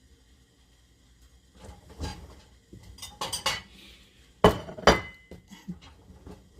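Kitchen utensils and dishes clinking and clattering on a counter: a quiet start, then scattered knocks, with two sharp clanks about four and a half seconds in, the second ringing briefly.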